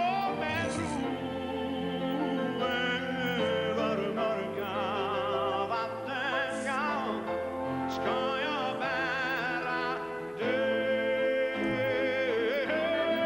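Orchestral ballad music with strings carrying a slow melody with wide vibrato. It swells a little louder about ten seconds in.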